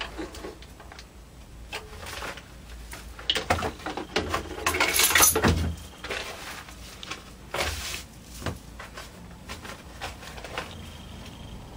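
Sheets of stitched paper rustling and crackling as they are handled and shuffled, with small clicks and taps between. The loudest crinkling comes about halfway through. The sewing machine is not running.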